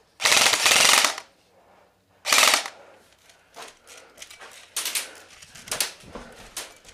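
Airsoft gun firing two full-auto bursts: a loud one about a second long, then a short one about two seconds in. Scattered quieter knocks and footsteps follow.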